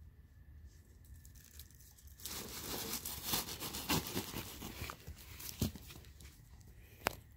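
Black plastic sheeting crinkling and rustling for about three seconds as a bare foot presses against it, with sharp crackles mixed in. A single sharp click comes near the end.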